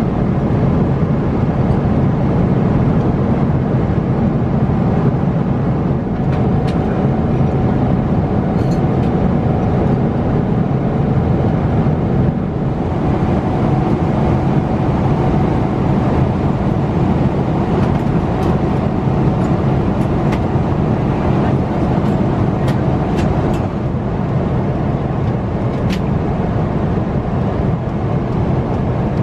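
Steady cabin noise of a Boeing 777 airliner in flight, a low, even sound of engines and airflow, with a few faint clicks through the middle and later part.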